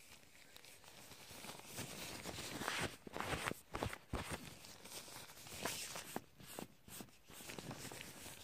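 Gloved hands rubbing and tapping close to the microphone: irregular soft taps and rustling, busiest in the middle.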